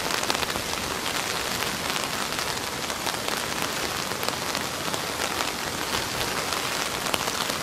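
Floodwater spilling in a wide cascade over a low ledge: a steady rushing, splashing noise that does not let up.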